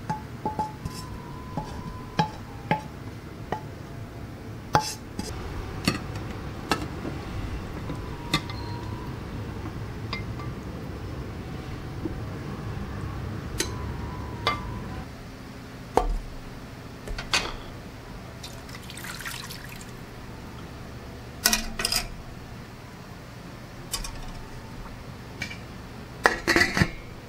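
Porcelain bowl, plate and chopsticks clinking against each other in scattered sharp clinks while garlic and chicken are handled. Near the end a quick cluster of clatter comes as the bowl is set into the electric cooker.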